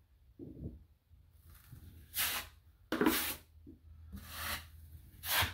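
An 8-inch drywall knife scraping loading joint compound across drywall in about four short strokes, roughly a second apart, starting about two seconds in.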